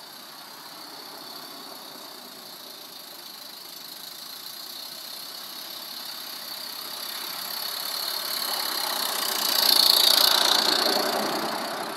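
Small live-steam model locomotive running on a garden railway, approaching and passing close by. Its running sound grows steadily louder to a peak about ten seconds in, then fades.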